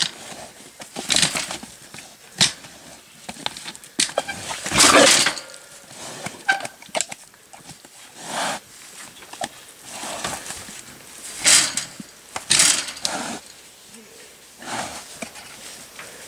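A trapped feral pig moving about in a wire-mesh cage trap, making short noisy sounds at irregular intervals, the loudest about five seconds in.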